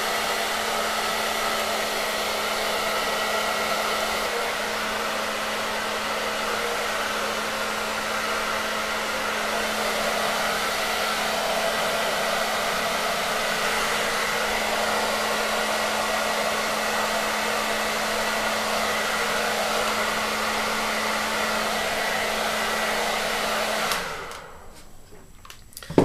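Hand-held hair dryer with a diffuser attachment running steadily, a constant rush of air with a steady hum under it, switched off abruptly near the end.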